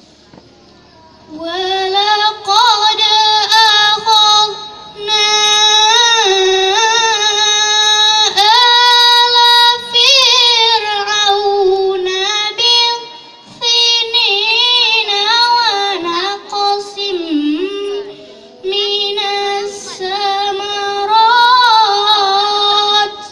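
A girl's voice chanting a Quran recitation (tilawah) in long melodic phrases with held, ornamented notes. It starts about a second and a half in, with short breath pauses between phrases.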